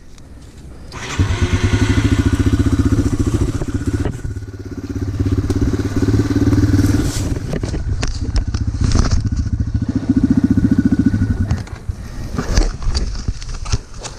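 Off-road motorcycle engine revving hard in long, held bursts: about a second in, again around five seconds in, and again around ten seconds in. Scattered knocks and clatter follow near the end.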